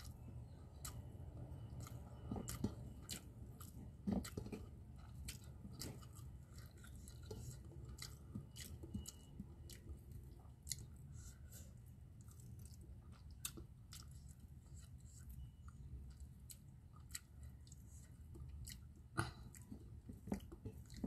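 Close-up chewing and mouth sounds of a person eating rice with salted fish by hand, with many small sharp clicks and smacks at irregular intervals over a steady low hum.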